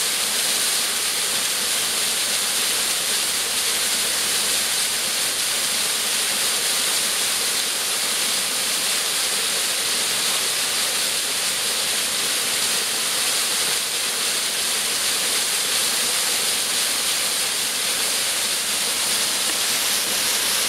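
Small woodland waterfall pouring down a rocky cascade into a pool, a steady, even rush of falling water with a bright hiss.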